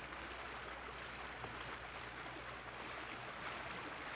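Steady rushing of flowing river water, an even hiss with no distinct events.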